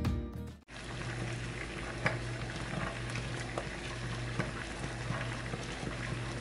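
Water boiling in a pan with glass jars turned upside down in it to sterilise them: a steady bubbling hiss with a few faint clicks.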